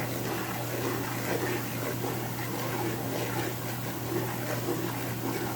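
Chopped garlic and chili frying in a pot of hot oil, bubbling and crackling with a dense, steady patter of small pops as the garlic turns light brown, over a steady low hum.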